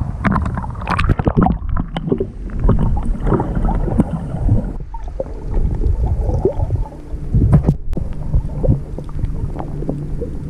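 Muffled underwater sound of an action camera held below the surface while snorkelling: a low rumble of moving water with irregular bubbly clicks and knocks.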